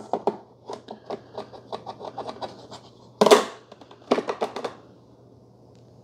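Black plastic cone brew basket of a Farberware dual-brew coffee maker being handled in its holder: a run of light plastic clicks and scrapes, one louder knock about three seconds in, and a quick rattle of clicks just after four seconds.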